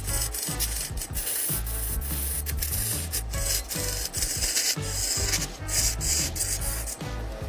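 A turning tool cutting into a large log spinning on a wood lathe: a continuous rasping hiss, crackling with many small ticks as shavings fly off.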